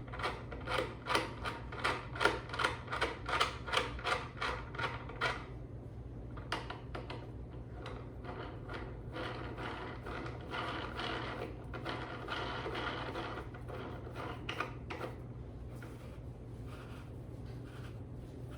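Cat tree parts being screwed together by hand: a quick run of short scraping, clicking strokes, about three a second, then after about six seconds a softer, steadier rubbing and grinding as the piece is turned tight.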